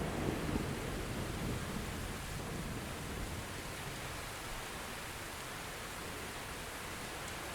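Steady rain falling in a thunderstorm, a constant even hiss. The low rumble of a passing thunderclap dies away over the first second or two.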